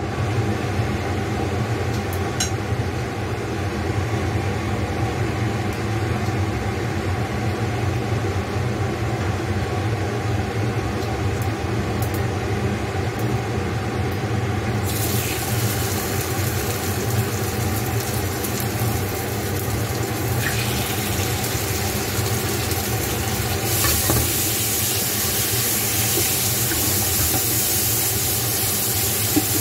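Marinated pork chops laid into hot oil in a frying pan and sizzling: the sizzle starts about halfway through and grows louder some seconds later. A steady low hum runs underneath throughout.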